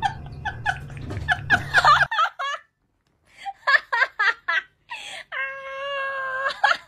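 Giggling laughter, then after a short silence a run of short high-pitched cries and one long, steady wailing cry lasting about a second.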